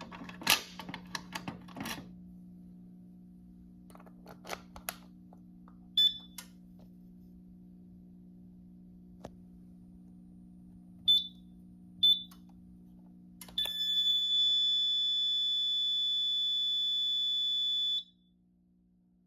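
Fire alarm control panel, likely the Simplex 4010ES: several clicks of keys or handling, then three short high beeps, then the panel's piezo sounding one steady high-pitched tone for about four seconds before it cuts off suddenly. A low electrical hum runs underneath.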